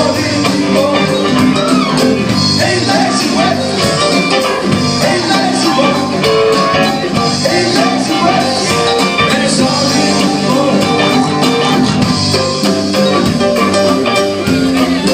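A live rock band playing, with guitar and a steady drumbeat driving the music.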